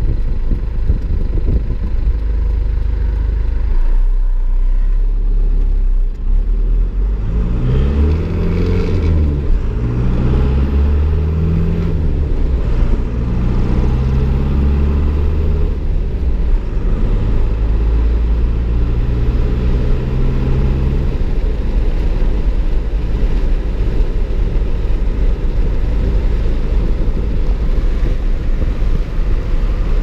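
Cummins 4BT four-cylinder turbo-diesel in a Ford Ranger, heard from inside the cab as the truck is driven through the gears of its manual transmission. From about seven seconds in to about twenty-one, the engine note steps up and down between gears, with a faint high whistle rising and falling alongside. After that it settles into steady running at speed.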